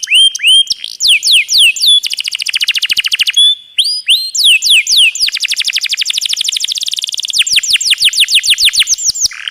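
Domestic canary singing long rolls: fast runs of rapid, repeated falling notes, with a brief break about a third of the way in and a few short steady whistled notes.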